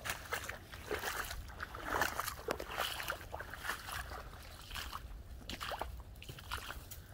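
A German Shorthaired Pointer splashing as it wades through shallow standing water in woodland, mixed with irregular squelching footsteps on wet leaf litter.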